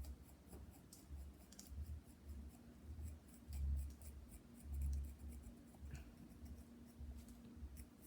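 A rounded-end tool scratching short texture marks into leather-hard clay: a series of faint, quick scratches, with repeated dull low knocks from handling the piece.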